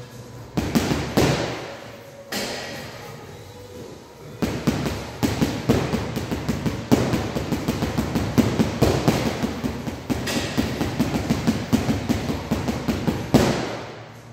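Boxing gloves punching a hanging Bushido heavy bag: a few single blows in the first couple of seconds, then a long, fast flurry of punches from about four seconds in until just before the end.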